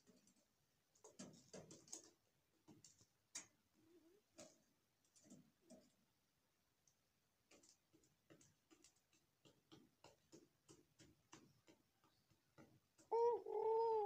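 Faint, irregular light taps and clicks, then about a second before the end a ringneck dove coos loudly, one coo in two linked notes.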